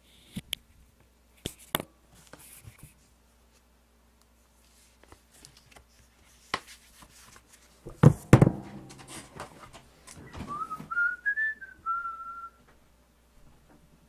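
Knocks and rustling as a man gets up out of a leather office chair at a desk, then a short whistle of a few wavering notes lasting about two seconds.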